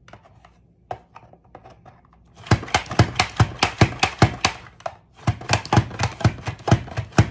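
Zucchini being sliced on a Rapid Prep Mandolin: a fast run of sharp clacks, several a second, starting a couple of seconds in, with a short break about five seconds in.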